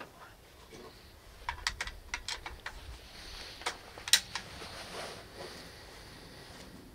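A run of light, sharp clicks from a bolt-action rifle being handled, about one and a half seconds in, then a few more about four seconds in. No shot is fired.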